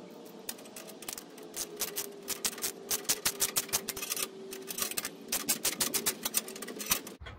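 Ratchet wrench clicking rapidly in irregular bursts as the clamp nut and bolt of an exhaust rain cap are tightened, stopping suddenly near the end.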